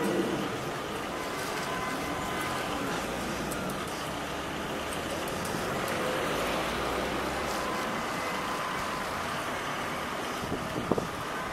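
Steady rumble of city motor traffic and engines. A couple of sharp knocks come near the end.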